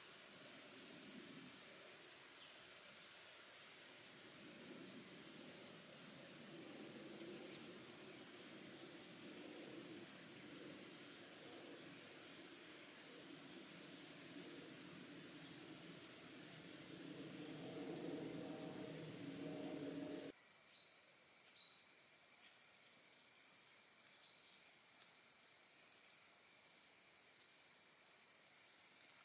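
Dense chorus of insects, a steady high-pitched drone over a fast pulsing trill. About twenty seconds in it cuts abruptly to a much quieter chorus with scattered short chirps.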